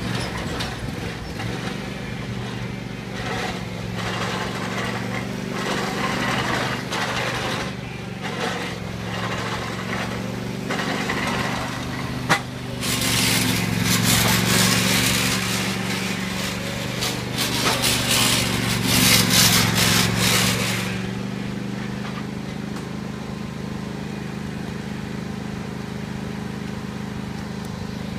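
John Deere ride-on lawn mower engine running steadily as the mower drives along a paved driveway. It gets louder and noisier, with a rattling hiss, from about 13 to 21 seconds in as it passes close by. There is a single sharp knock just before that.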